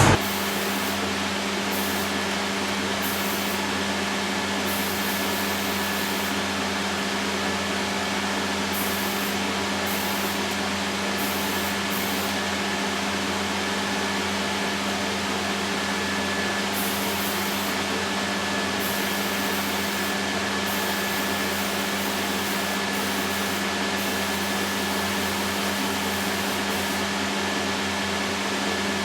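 A steady machine running without change: an even hum with a hiss over it, like a motor-driven workshop machine.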